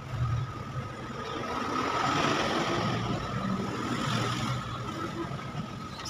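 Motor vehicle passing by, its engine noise swelling to a peak about two seconds in and then fading.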